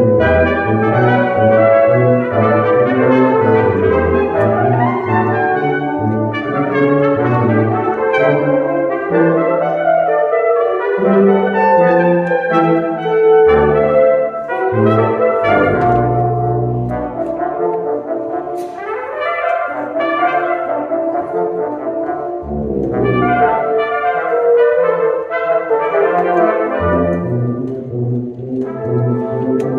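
A brass quintet of two trumpets, French horn, trombone and tuba plays a lively piece, with a busy tuba bass line under the upper parts. The sound thins for several seconds past the middle, then the full ensemble comes back in.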